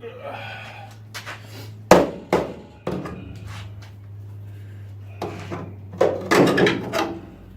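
Hammer-style tapping tool knocking on a cut section of car body sheet steel to free it from an old weld: a few sharp knocks about two to three seconds in, then a quicker run of knocks near the end, over a steady low hum.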